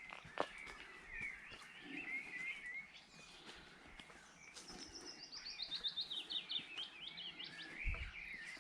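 Wild songbirds singing quietly: a twittering warble, then from about halfway a longer phrase of quick notes that step down in pitch.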